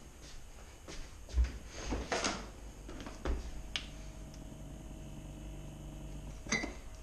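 Rummaging in the cupboard under a stainless steel sink: scattered knocks and clatter of objects being handled and moved. A steady hum runs for about three seconds in the middle.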